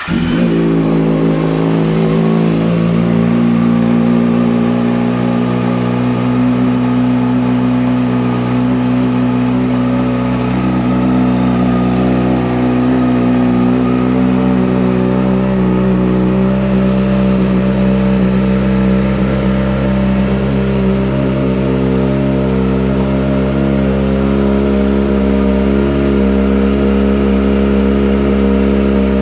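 2012 Kawasaki ZX-6R's 599 cc inline-four catching and then idling steadily through a Two Brothers aftermarket exhaust. Its idle settles a little lower about halfway through.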